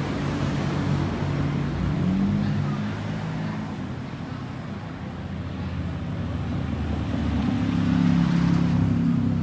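Motor vehicle engines running in street traffic. One engine rises in pitch about two seconds in, and another grows louder near the end as it comes close.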